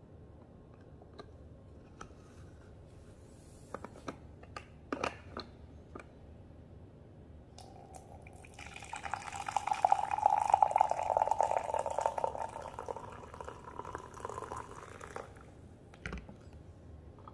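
Hot coffee poured from a glass French press into a ceramic mug, a steady pour of about seven seconds that is loudest in the middle. A few light clicks come before the pour, and there is a single knock near the end.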